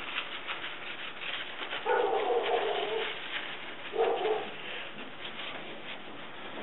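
Old masking tape and paper being peeled and scraped off a fiberglass boat mold, a steady scratchy rustle. Twice an animal gives a short held call over it, the first about a second long, the second shorter, about two seconds later.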